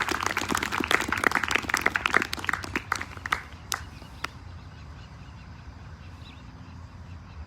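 Audience applauding. The claps thin out and stop about four seconds in.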